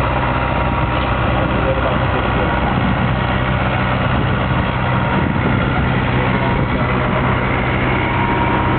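A boat's engine running steadily with a low, even hum, heard on board.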